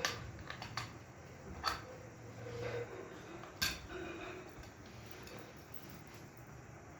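Sharp clinks and knocks of metal fan parts and tools being handled during an electric fan repair: louder ones at the start, just under two seconds in and about three and a half seconds in, with softer ticks between.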